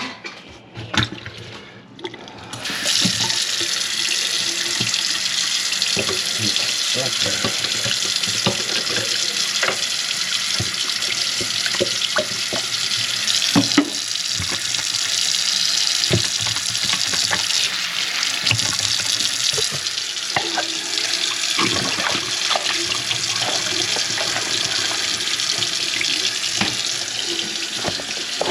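Kitchen sink tap turned on about three seconds in, water running steadily into the sink, with scattered small knocks and clatters.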